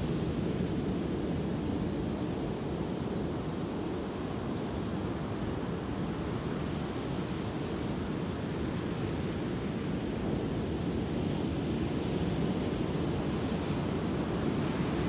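Ocean surf breaking and washing up a sand beach, a steady rushing noise with no distinct single crashes.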